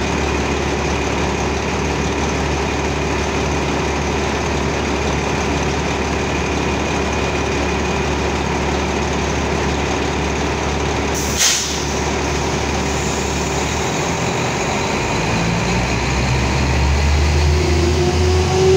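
Subway vacuum train's machinery running in a steady, loud drone beside the platform. About halfway through comes a short sharp hiss of air, and near the end a rising whine as the train begins to pull away.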